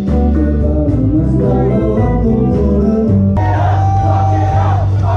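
Music: a melodic passage over held bass notes, then an abrupt cut about three seconds in to a passage with a singing voice over a steady bass.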